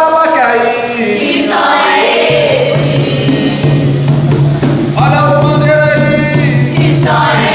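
Capoeira song: voices singing a phrase twice over tambourine-led percussion, with a steady low tone joining about two seconds in.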